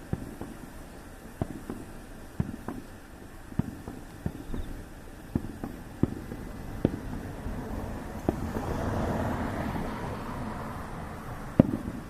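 Fireworks bursting in the sky: a run of sharp bangs at irregular intervals, about one a second. A longer rush of overlapping noise swells and fades past the middle, and the loudest bang comes near the end.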